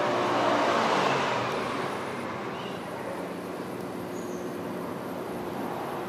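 Helicopter circling overhead: a steady rotor and engine drone, louder in the first second or two and then easing off a little.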